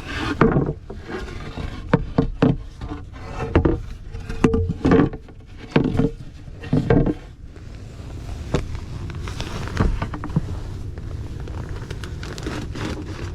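Irregular knocks, bumps and scrapes from a wooden board and materials being handled and shifted in a cramped space. They are frequent in the first seven seconds or so, then fewer.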